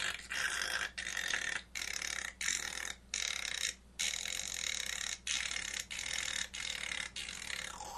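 Harsh hissing noise chopped into about ten short bursts, a little more than one a second, each cut off by a brief gap.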